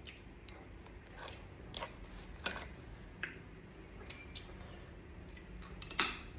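Hard-shelled mud crab being cracked and peeled apart by hand and teeth while eating: irregular sharp clicks and cracks of shell, the loudest near the end.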